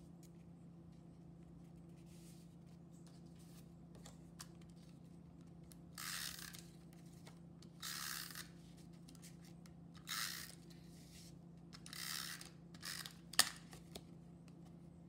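Snail adhesive tape runner drawn across the back of a cardstock panel in four short strokes about two seconds apart, laying down glue, followed by one sharp click.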